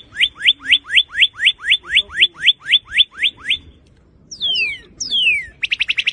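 Northern cardinal singing: a run of about fifteen clear down-slurred whistles at roughly four a second, then two long falling whistles, then a rapid trill near the end.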